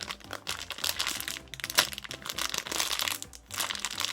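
Plastic packaging crinkling in irregular crackles as a cinnamon-roll squishy toy in its wrapper is handled.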